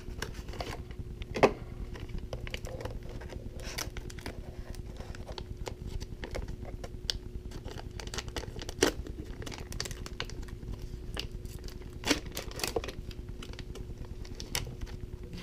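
Foil pouch of instant pack film being torn open and crinkled by hand: irregular crackling with a few sharp snaps of the foil.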